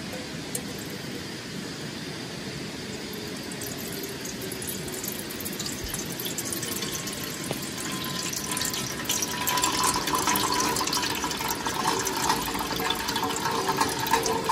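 Water poured from a stainless-steel vacuum flask into an aluminium camping kettle, a steady splashing that grows louder in the second half, with a faint filling tone rising as the kettle fills.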